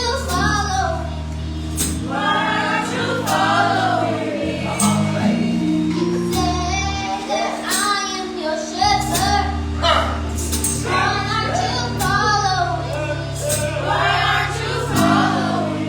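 Gospel song: voices singing over held low chords, with sharp percussion hits every second or so.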